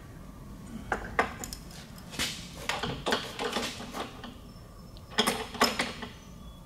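Metal parts clinking and scraping as a mandrel is worked onto a bolt, a tight fit. Irregular clusters of sharp clicks come about a second in, again from two to four seconds, and once more near the end.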